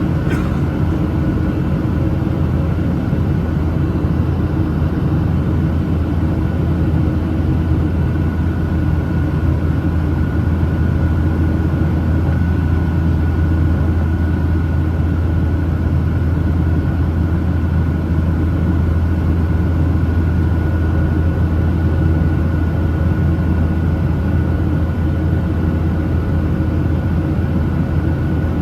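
Steady cabin drone of a Boeing 737-900ER in flight, heard from a window seat inside the cabin: a deep, even rumble from its CFM56-7B engines and airflow, with a thin steady high tone running over it. A brief click just after the start.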